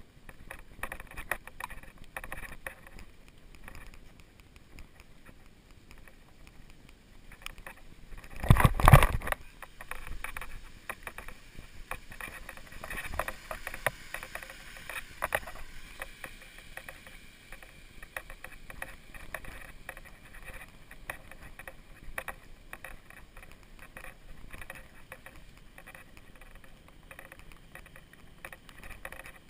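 Unicycle riding over a wet, muddy dirt trail: a steady run of small clicks and knocks from the tyre and the ride, with a loud burst about nine seconds in.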